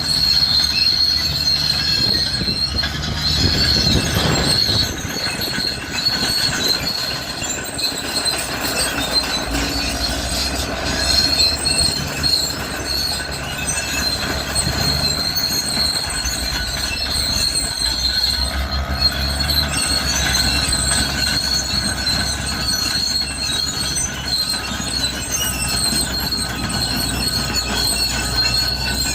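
Crawler bulldozer's steel tracks squealing steadily as the machine travels, over the low running of its diesel engine.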